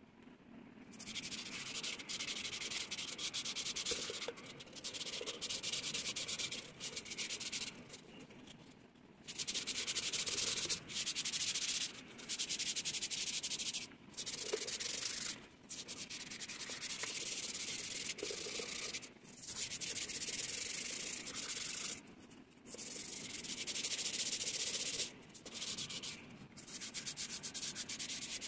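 Abrasive pad scrubbing the metal surface of a brass bowl: runs of quick rubbing strokes with a gritty hiss, broken by short pauses.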